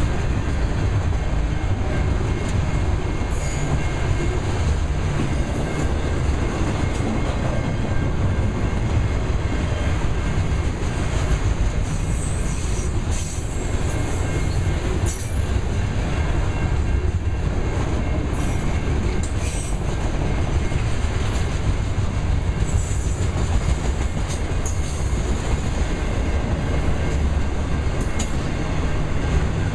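Autorack freight cars rolling past close by: a steady rumble of steel wheels on the rails with rail clatter, and a few brief high wheel squeals scattered through the passage.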